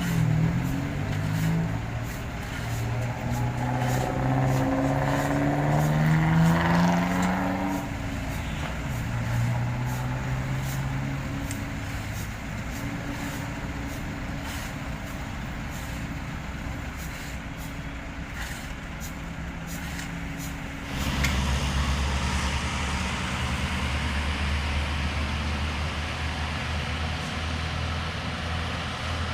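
Diesel engines of heavy asphalt-paving machinery, a paver and tandem roller, running. The engine note rises between about four and seven seconds in, then settles. About 21 seconds in, a deeper, steady engine hum takes over abruptly.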